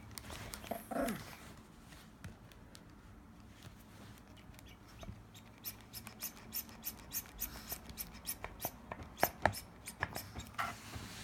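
Plastic water bottle crinkling and crackling in a string of sharp clicks, two or three a second, starting about halfway through with a few louder cracks near the end.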